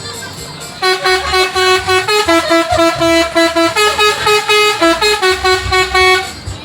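Indonesian bus 'telolet' musical horn playing a quick tune of short notes that step up and down in pitch. It starts about a second in and stops shortly before the end.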